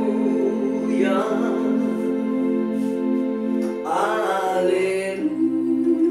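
Portable electronic keyboard playing sustained, organ-like chords, the chord changing about five seconds in. Short wavering voice-like calls sound over it about a second in and again about four seconds in.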